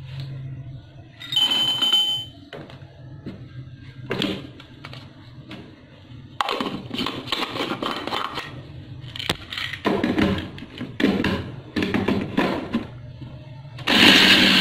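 Knocks, taps and clatter of the blender being set up, with a short ringing tone about a second and a half in. Near the end an electric blender-grinder motor starts abruptly and runs loudly, grinding almonds.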